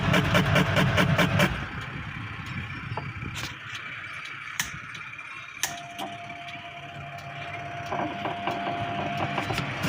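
A washing machine motor runs with a steady low hum and a fast even beat, then cuts off about a second and a half in. A few sharp clicks follow, and later a faint steady tone.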